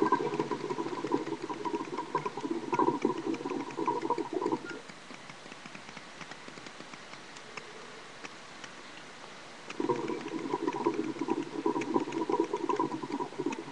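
Water in a Darwish Syrian hookah's base bubbling as smoke is drawn through the hose. One draw of bubbling lasts about five seconds, then there is a pause, then a second draw starts about ten seconds in.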